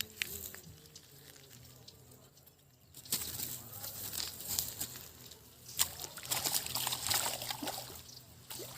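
Water splashing and sloshing in an irregular run, starting about three seconds in and dying down near the end.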